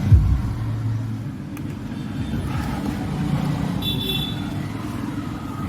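Bass-heavy music playing through a Philips 2.1 home theatre system, mostly a low rumble of bass from the woofer with steady low notes.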